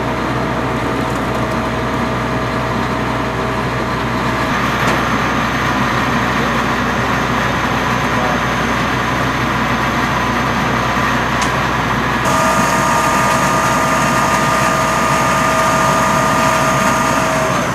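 Fire engine running steadily to drive its water pump, a continuous loud drone with a thin steady whine over it. The whine shifts abruptly about four and a half seconds in and again about twelve seconds in.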